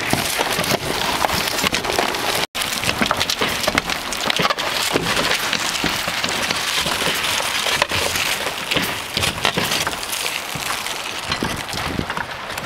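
Roofing shovels prying old asphalt shingles off a roof: a dense, continuous scraping and crackling with many small sharp clicks as the shingles tear loose.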